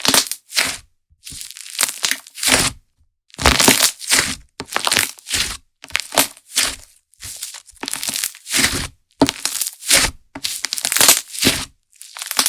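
Handmade slime being squished and pressed by hand, giving a run of crackling pops, about two a second.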